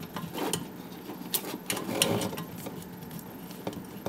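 Small metallic clicks and scrapes as the nut of a braided water supply line is turned by hand onto the brass elbow fitting of a dishwasher inlet valve, in a loose series of ticks with a couple of louder ones about two seconds in.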